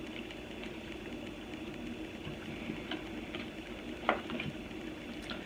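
Tarot cards being handled on a table: faint rustling and light taps, with one sharper click about four seconds in, over a steady low hiss.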